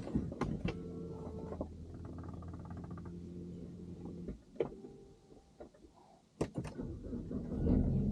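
Inside a BMW E90 sedan: a few sharp clicks, then a steady low hum for about four seconds that stops, more clicks, and a louder low rumble that sets in near the end.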